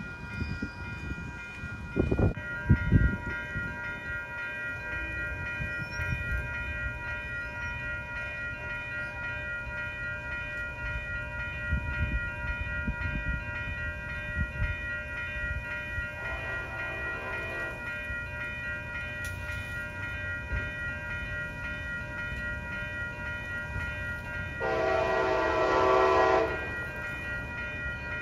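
An approaching train's horn, heard from a distance: a faint blast about halfway through, then a louder blast lasting about a second and a half near the end. Behind it are a continuous high ringing, a low rumble, and a few knocks in the first seconds.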